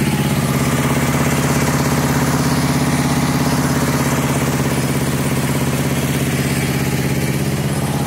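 Diesel engine of a mobile rice-milling machine running steadily at an even speed.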